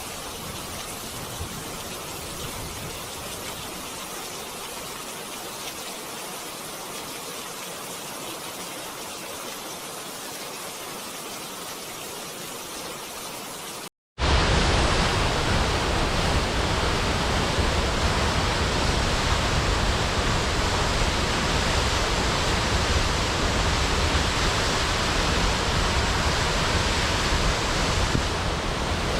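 Steady rushing water. For about the first half it is a softer, even hiss; after a brief dropout about halfway through it changes abruptly to a louder, fuller rush with a deep low rumble, like a waterfall.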